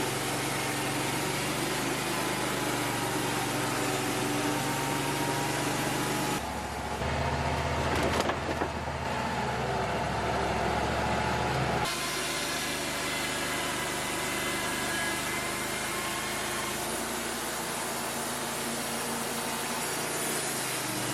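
Wood-Mizer LT35 portable sawmill running steadily, its engine and band saw going with a constant drone; for about five seconds in the middle the tone changes abruptly and gets deeper, then returns.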